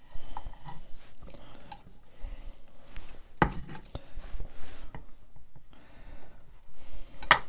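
Small knife cutting through Medjool dates on a wooden chopping board, with light scraping and clicks of the blade on the board and two louder knocks, one about three and a half seconds in and one near the end.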